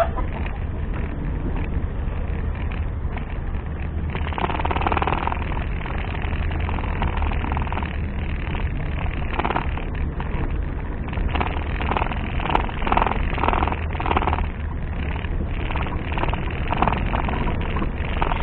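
Off-road 4x4 engine running with a steady low drone, louder in patches about four seconds in and again about twelve to fourteen seconds in.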